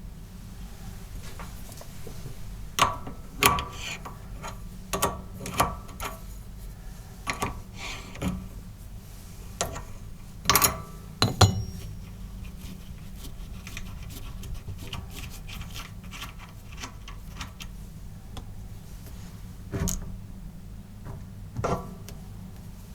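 Irregular clicks and knocks of metal lathe parts and tools being handled, over a steady low hum.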